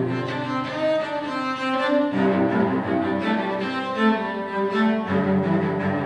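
Solo cello played with the bow: a run of held notes that change every second or so, often with more than one note sounding together, and a change to lower notes about two seconds in and again about five seconds in.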